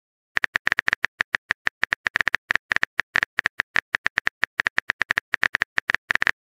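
Rapid keyboard-typing clicks from a texting app's sound effect, about six or seven short clicks a second at an uneven pace, as a message is typed out.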